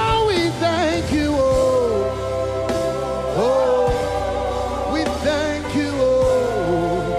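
Live gospel worship music: a band plays held chords and a steady bass while voices sing long, sliding notes of a thanksgiving refrain.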